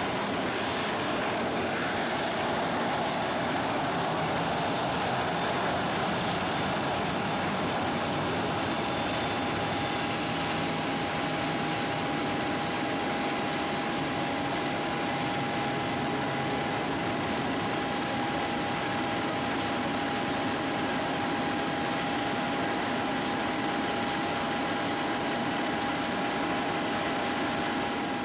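Boeing 737-500's twin CFM56-3 turbofan jet engines running at taxi power: a steady rushing hiss with a high whine, one steady tone that sharpens about seven seconds in and then holds.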